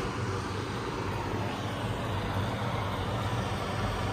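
Hot air balloon's propane burner firing: a steady rushing noise with a low hum underneath.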